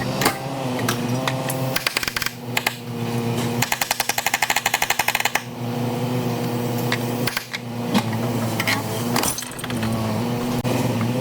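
Hand-tool work on a car body: scattered knocks and clinks, and a rapid rattle of a tool for about two seconds in the middle, over a steady hum.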